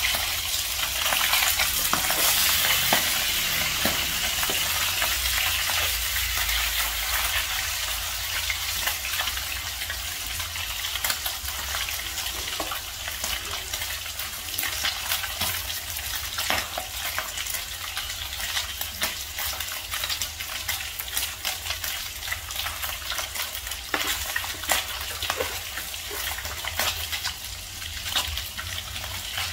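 Fish steaks frying in hot oil in a pan, a steady sizzle thick with crackles and pops, louder for the first few seconds. A metal spatula moves and scrapes among the pieces at the start.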